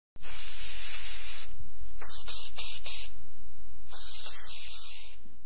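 Aerosol spray paint can spraying in bursts: a long spray, then about four short quick puffs, then another long spray.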